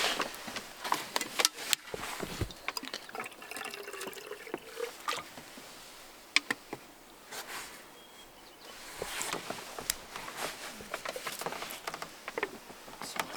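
Scattered light clicks, taps and rustling, as of small objects being handled and set down.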